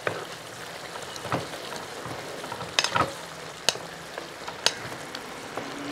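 Beef liver and onions in a thick gravy sizzling in a wok while a wooden spatula stirs them, with a steady hiss and several sharp knocks of the spatula against the pan.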